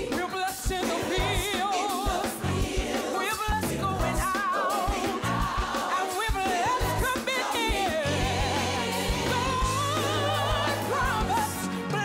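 Recorded gospel song: singers with a wide vibrato over drums and bass, the bass growing fuller about two-thirds of the way through.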